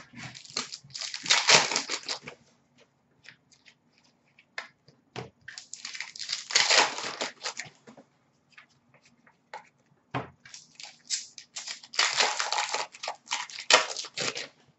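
Foil hockey card pack wrappers being torn open and crinkled, in three bursts of crackling a few seconds apart, with small clicks of cards being handled in between.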